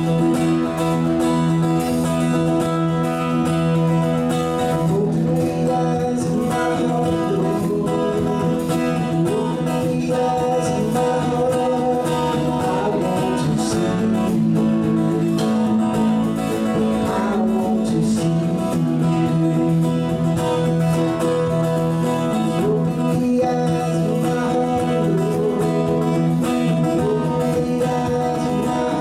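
A small band playing live: strummed acoustic guitar, electric guitar, electric bass and drums, with a man singing lead.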